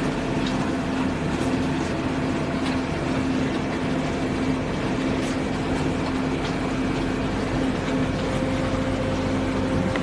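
Forced concrete mixer with pump running steadily: an even mechanical hum over a low drone, with a few faint ticks scattered through it.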